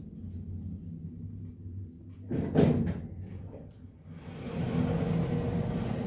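Lift car of a Tepper elevator with a steady low hum as it travels, then a thump about two and a half seconds in as it stops at the floor. From about four seconds in, the automatic sliding car doors open with a steady rumbling whir from the door operator.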